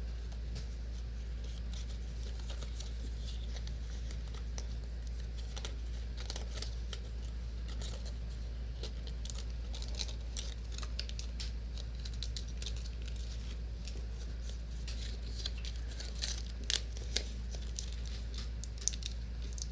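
Paper being handled close up: scattered crinkles, rustles and small clicks, busier in the second half, over a steady low hum.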